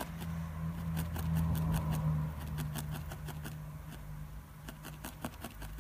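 Felting needle stabbing repeatedly into wool on a felting pad, giving a run of quick, irregular soft clicks over a steady low hum.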